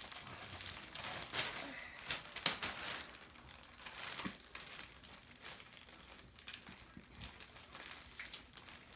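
Wrapping paper being crinkled, crumpled and torn by hand in irregular bursts as a child pulls a large plush toy out of its wrapping.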